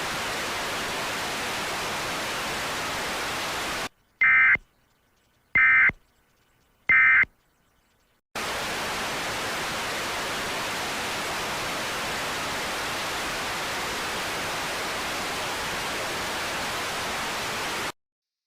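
Steady static hiss, broken about four seconds in by three short, louder, screechy data bursts of an Emergency Alert System end-of-message code, then steady static again until it cuts off just before the end.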